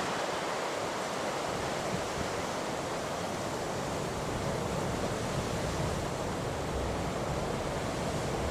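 Steady rush of wind and rough, choppy sea, an even noise with no distinct events.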